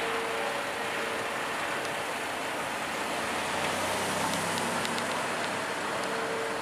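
Airbus H135 twin-engine helicopter flying away after take-off: a steady rush of rotor and turbine noise with a hum, slowly fading as it draws off.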